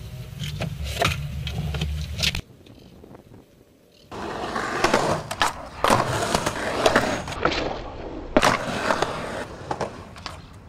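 Skateboard wheels rolling on concrete, with several sharp clacks of the board popping and landing on the ramps. There is a brief lull a couple of seconds in, and the loudest clack comes near the end.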